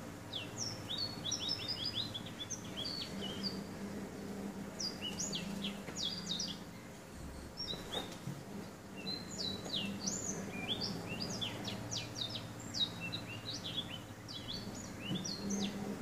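Black-throated canary singing in several bursts of quick, high twittering notes with short pauses between them. Its song was trained on a goldfinch's and is not yet perfect.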